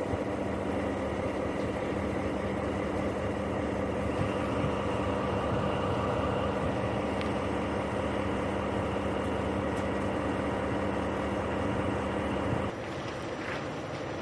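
Diesel locomotive SU160 idling at a standstill: a steady engine drone with a constant low hum. The sound drops off abruptly about a second and a half before the end.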